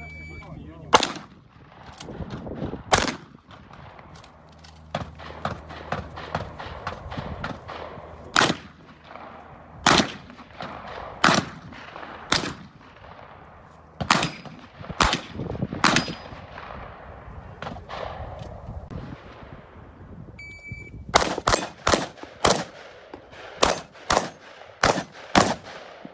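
Semi-automatic 12-gauge Benelli M2 SP shotgun fired on a practical-shooting stage: single shots a second or two apart. About twenty seconds in, an electronic shot-timer beep is followed by a fast string of about ten shots in under five seconds.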